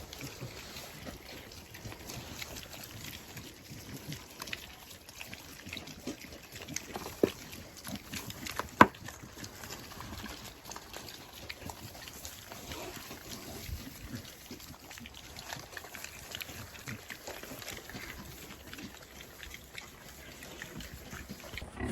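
Pigs grunting softly, with a couple of sharp knocks about seven and nine seconds in.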